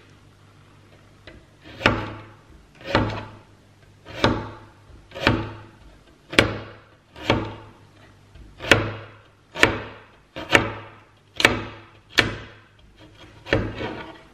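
Knife slicing a radish thinly on a cutting board: about twelve cuts, roughly one a second, each a sharp chop of the blade through the radish onto the board.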